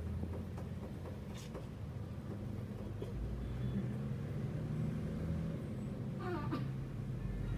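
A steady low rumble, with a short pitched whine that bends up and down about six seconds in.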